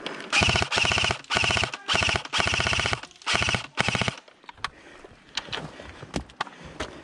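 Airsoft M4-style rifle firing on full auto in seven short rapid bursts over the first four seconds, each a fast rattle of shots. After that only scattered faint clicks of other airsoft fire.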